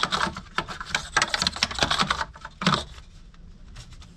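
A rapid run of light clicks and rattles as a fan clutch is spun by hand onto its threaded hub, stopping about three seconds in.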